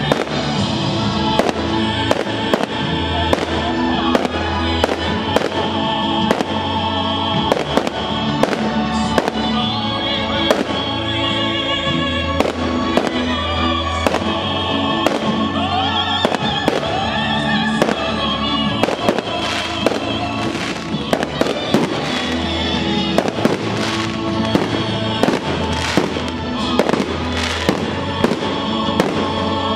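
Aerial fireworks bursting in a steady string of sharp bangs, thickest in the second half, over music playing throughout.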